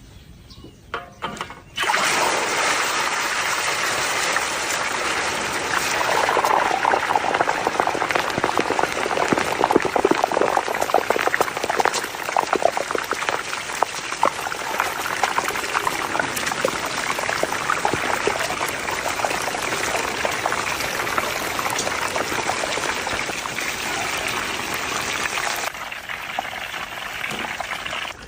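Water running or pouring in a steady stream, starting abruptly about two seconds in and dropping off near the end.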